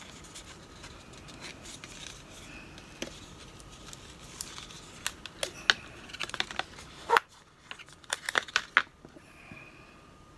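Hands handling a small cardboard box insert from a phone box: light rustling with scattered sharp clicks and taps, which bunch together in the second half.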